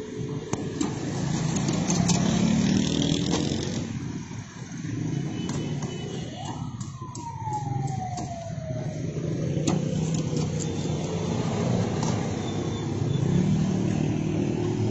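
Street traffic with vehicle engines running, and a single siren-like tone that rises sharply about six seconds in and then slowly falls away over about three seconds. A few sharp metallic clinks from the wire frying basket.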